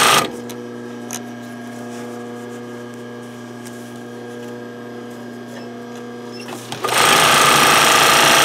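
Electric domestic sewing machine stitching a zipper onto a terry towel in two runs: a run that stops just after the start, then a steady run of stitching that begins about seven seconds in and carries on.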